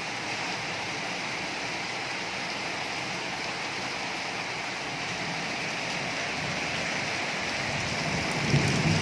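Steady rain falling and pattering on surfaces, with a low rumble swelling near the end.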